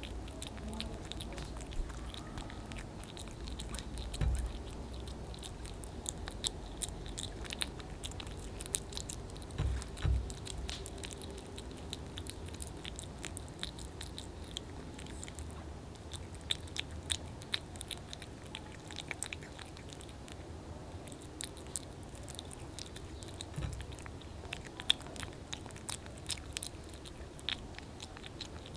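A kitten eating soft wet cat food from a plate close to the microphone: a run of quick, irregular wet chewing clicks, broken by three dull low thumps.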